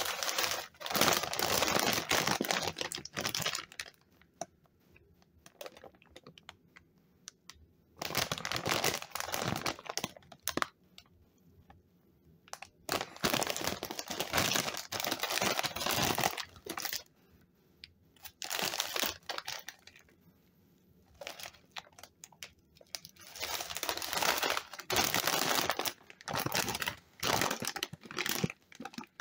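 Shiny foil-lined Lay's potato chip bag crinkling as it is handled and turned over, in several bursts of a few seconds each with short pauses between.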